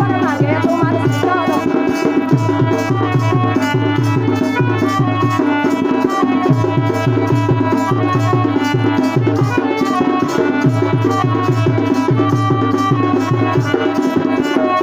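Instrumental passage of Karam folk dance music: a steady hand-drum rhythm under a held melody line, the sung verse having stopped about a second in.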